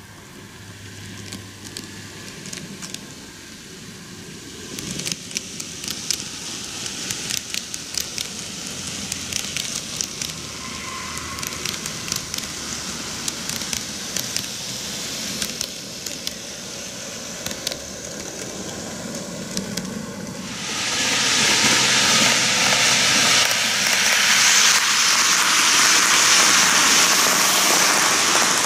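Microace N-gauge Kintetsu 23000 series Ise-Shima Liner model train running on its track, its wheels clicking and rattling and growing louder as it approaches. About twenty seconds in it passes right by, and the running noise becomes a much louder, steady rushing hiss.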